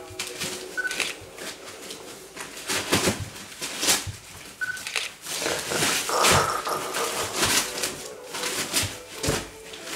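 Newspaper and blankets rustling and crinkling in irregular bursts as a dog shifts and works at its bedding with its mouth.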